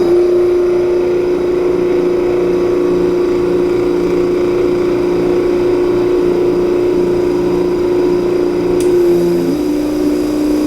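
Mechanical vacuum pump running with a steady, loud drone, pumping down the air above water in a dewar to lower its pressure. The hum drops slightly in pitch about nine and a half seconds in, just after a short tick.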